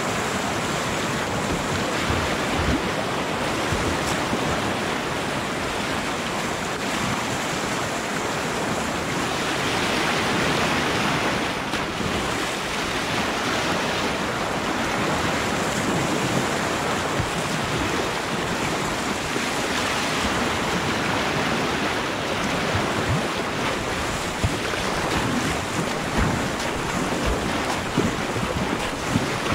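Fast river water rushing and splashing around a paddling kayak's hull as the bow cuts through the current, with occasional paddle strokes in the water.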